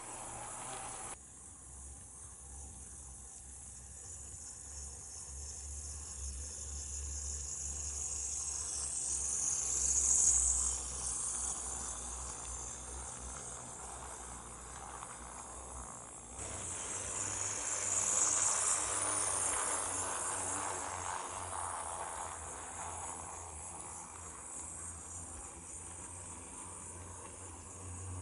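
Small geared DC motor of a motorised toy C11 steam locomotive (a Tamiya mini motor low-speed gearbox) running with a high whine as it hauls coaches on plastic track, swelling louder twice as the train passes close by.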